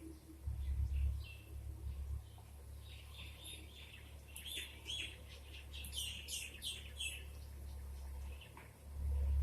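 Small birds chirping: a flurry of short, high, falling chirps in the middle, over a low rumble that swells near the start and again near the end.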